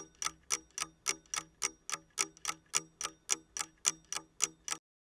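Steady clock-like ticking, about three to four sharp ticks a second, which stops abruptly near the end.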